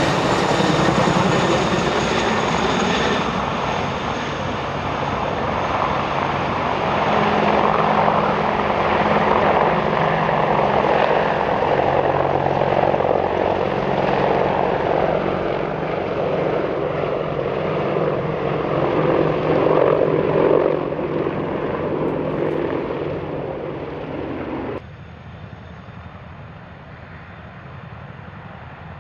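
AH-64 Apache attack helicopters flying close by: loud, steady rotor and twin-turboshaft engine noise with a rapid rotor beat. Near the end it cuts suddenly to a quieter, steady running of an NH90 helicopter with its rotors turning on the ground.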